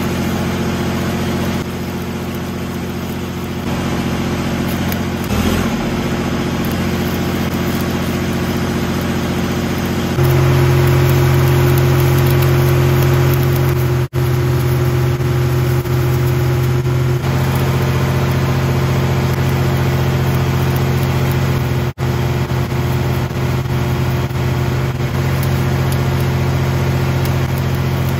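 Air-cooled Deutz diesel engine of an SAE 350 engine-driven welder running steadily, its note getting louder and heavier about ten seconds in, with the crackle of a 3/32 7018 stick-welding arc.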